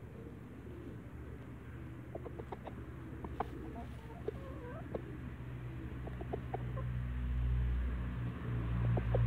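Brahma chickens clucking in short, scattered notes while they forage. A low rumble builds in the second half and becomes the loudest sound near the end.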